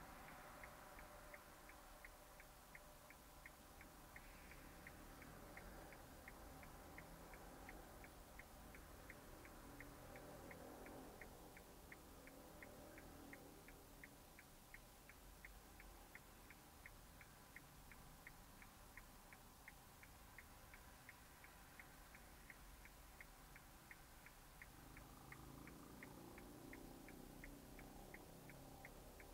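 Faint, even ticking about twice a second inside a stationary car, typical of the turn-signal or hazard indicator clicking, over a low, near-silent background.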